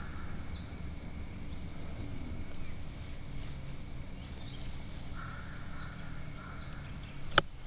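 Birds calling in rainforest: many short, high chirps that each slide downward in pitch, repeating over a steady low background rumble. A single sharp click comes near the end.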